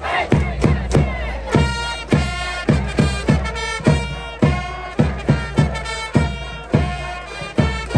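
Baseball cheering-section brass band: trumpets playing a cheer melody in unison over strong, regular drum beats, about two to three a second.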